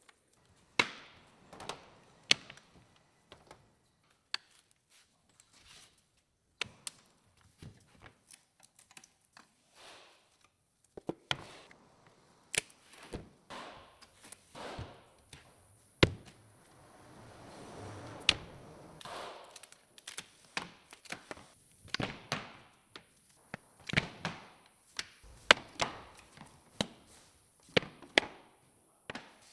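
Irregular knocks, taps and clatter of cut pieces of 18 mm white melamine MDF being lifted off a CNC router table and set down, with a longer scraping sound about halfway through.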